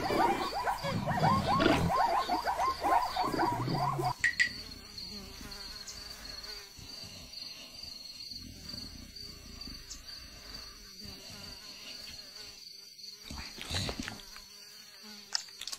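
Savanna ambience with a steady high insect drone like cicadas. For the first four seconds a louder, rapid rippling sound plays over it; after that the ambience is quieter, with a few faint short sounds near the end.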